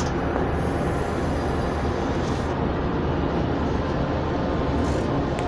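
Diesel engine of a track maintenance motor car running steadily, heard inside its cab, its sound mostly low-pitched and even.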